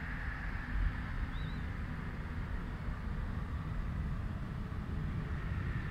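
Wind buffeting the microphone over a steady distant airport rumble. A short high chirp sounds once, about a second and a half in.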